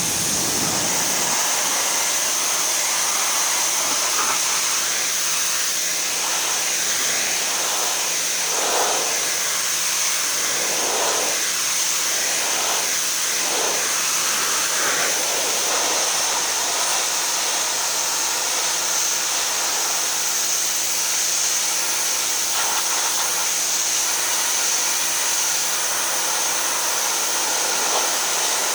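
Bloom NXG2200 2200 psi electric pressure washer running with the trigger held: its motor and pump hum under a steady hiss of high-pressure water spray.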